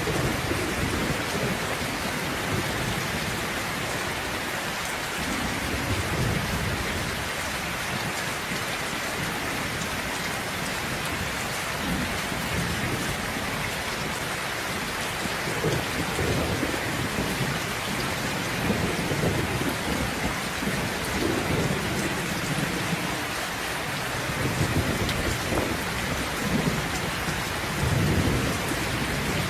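Steady heavy rain falling, with low thunder rumbling in and out, swelling several times in the second half.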